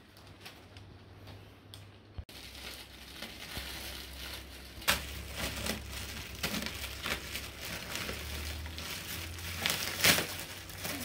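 Gift wrapping paper being torn open and crumpled by hand, a steady crackling and rustling that starts about two seconds in, with sharper rips about five seconds in and again near the end.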